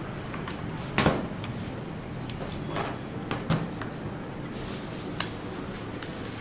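Irregular clicks and knocks from a Redragon K617 Fizz mechanical keyboard being handled and its keys pressed one at a time, the loudest knock about a second in.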